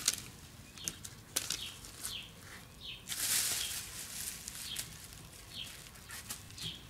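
Thin plastic masking film rustling and crinkling as it is pulled and handled, with scattered short crackles and a louder rustle about three seconds in.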